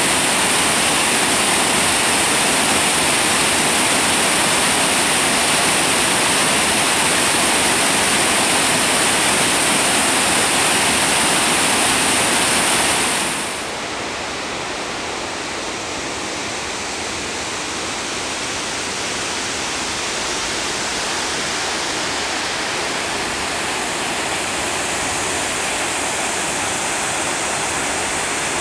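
Water pouring over Bloede Dam's spillway: a steady, loud rush. About 13 seconds in it drops suddenly to a softer, more distant rush, which grows a little louder near the end.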